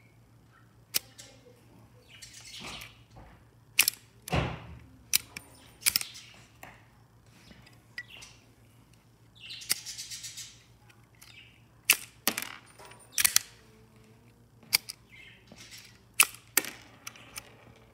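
Sharp metallic clicks and clacks of a homemade .22LR Hotchkiss-style bolt action being worked by hand, with two short stretches of metal sliding and scraping; the heaviest knock comes about four seconds in. The bolt is being cycled and a round fed from the tube magazine through its hand-worked one-at-a-time cartridge dispenser.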